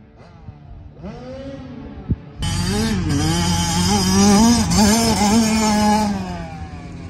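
Small dirt bike engine revving as it rides the track, faint at first, then loud from about two and a half seconds in, its pitch rising and falling with the throttle before it fades near the end.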